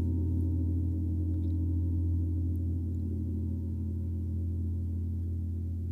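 Gong sounding in a low, sustained, shimmering wash of overlapping tones with a deep hum, fading slowly.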